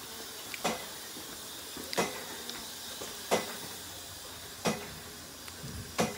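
Sharp clicks repeating at a very even pace, about one every second and a third, over a steady hiss.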